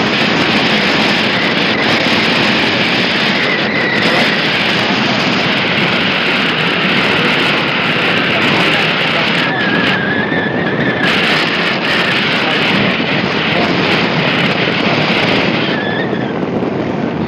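Loud, steady rush of wind buffeting the phone's microphone over the running noise of the vehicle they are riding on.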